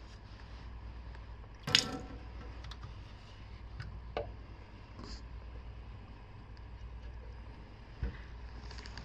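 Small plastic sample cups and lids handled on a stainless-steel lab bench. There is one sharp clack about two seconds in and a few lighter clicks, over a low steady hum.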